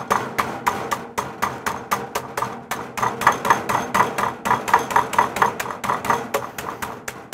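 Textured meat mallet pounding a boneless skinless chicken breast through a plastic zip bag on a wooden cutting board: rapid, steady blows, about six a second, flattening the breast to an even thickness.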